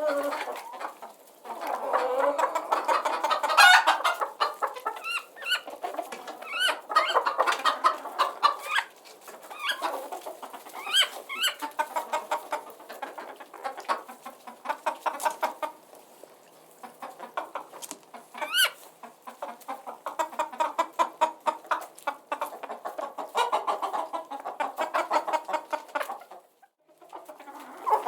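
A flock of chickens clucking: many short, overlapping calls that go on almost without a break, with a brief lull near the end.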